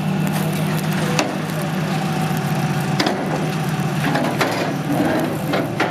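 A vehicle engine running with a steady low hum, with several sharp cracks or knocks over it, about four in all.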